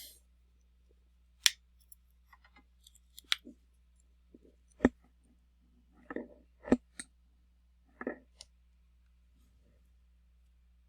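Scattered sharp clicks and taps of small tools and phone parts being handled while an iPhone mini is opened on the bench, several of them about a second apart.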